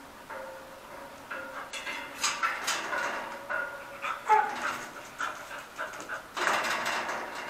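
A pit bull and a bull terrier panting, with short, high whimpering whines, one falling in pitch about four seconds in, while they meet through a barred gate. A longer, louder burst of breathy noise comes about six and a half seconds in.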